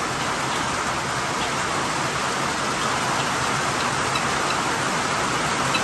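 Rain falling steadily on a barn's tin roof, a dense even patter.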